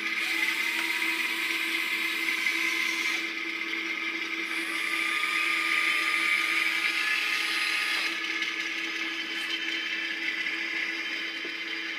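Small electric motors of a converted excavator whining as they run in two spells, the first rising in pitch as it starts, over a steady hum.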